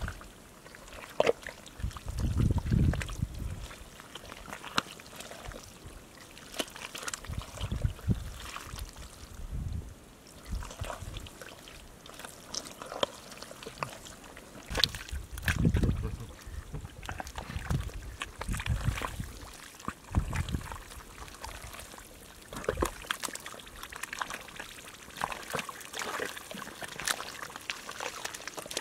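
Hands digging through thick wet mud, with irregular wet squelches, splats and slops as handfuls are worked and moved, and a few dull thumps.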